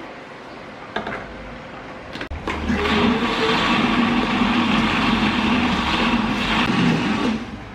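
Electric countertop blender starting about two and a half seconds in and running steadily for about five seconds, grinding a spice paste thinned with water, then switching off. Before it start, a couple of short knocks as the jar is handled.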